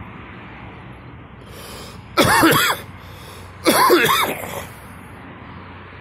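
A person coughing twice, about a second and a half apart, the second cough longer and trailing off.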